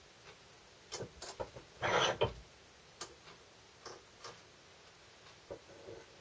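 Scattered small metal clicks and taps as parts are handled and set on a hand arbor press, with a louder clatter about two seconds in.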